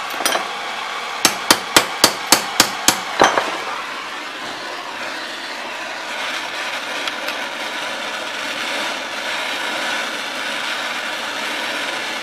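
A small hammer tapping steel rod in a metal bail-bending jig: a couple of light taps, then eight quick sharp strikes at about four a second. Under the strikes and after them is the steady hiss of a lit oxyacetylene torch flame.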